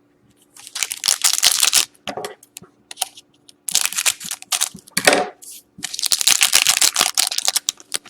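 Foil wrapper of a trading-card pack crinkling and tearing open in three crackly bursts.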